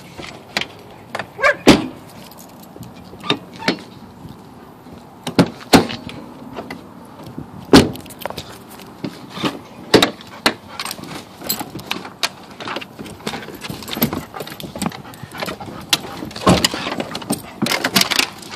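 Irregular sharp clicks and knocks with some metal jingling, from handling at an open car door and a dog's leash; a few of the knocks are loud.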